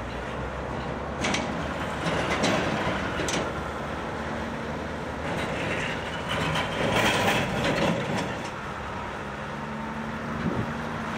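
Scania V8 tipper truck running as it drives across a gravel yard, with tyre and gravel noise. A few sharp knocks come in the first few seconds, and the sound swells louder about six to eight seconds in.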